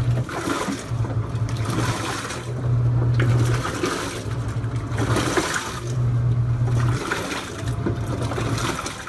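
Avanti STW20D2P portable washer in its wash cycle: the motor drives the pulsating bottom plate in spells of about a second with short breaks, a low hum each time, while the clothes and water slosh and swish in the stainless steel tub. About halfway through the motor rests for about two seconds, leaving only water splashing, then starts again.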